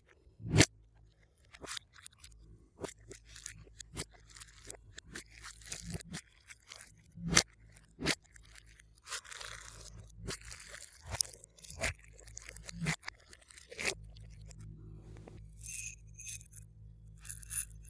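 Glossy slime being squished and kneaded by hand, giving irregular sharp wet clicks, pops and short crackly stretches.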